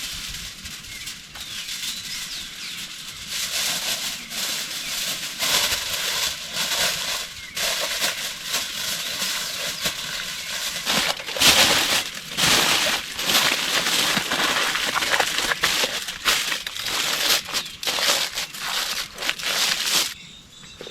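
Aluminium foil crinkling and crumpling as it is wrapped around a pumpkin, in irregular handling bursts with louder stretches; it stops abruptly near the end.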